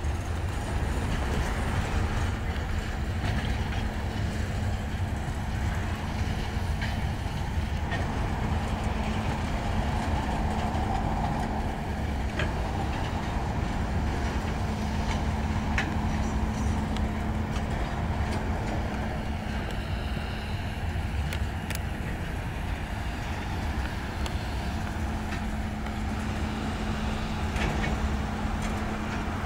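Freight train of tank cars and covered hopper cars rolling past at low speed: a steady low rumble and hum, with scattered wheel clicks over the rails.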